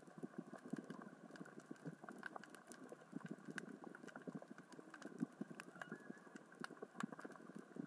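Underwater crackle of small rocks rolling and knocking across the sea floor, moved by the current and tide: a steady stream of irregular sharp clicks.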